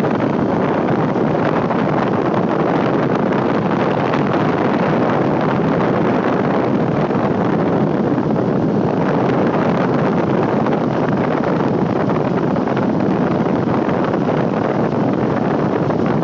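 Steady wind rushing over the microphone of a moving motor scooter at cruising speed, blended with road and engine noise.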